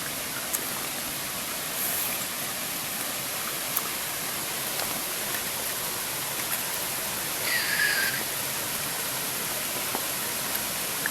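Waterfall rushing steadily, an even wash of falling-water noise. A brief high-pitched sound rises over it about seven and a half seconds in.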